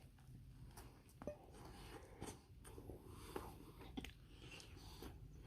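Faint close-up chewing of a chili dog on a toasted bun, with a few small crisp clicks and crunches.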